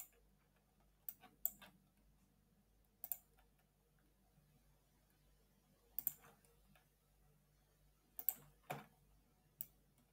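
Computer mouse clicking, about eight short sharp clicks at irregular intervals, some in quick pairs, against near silence.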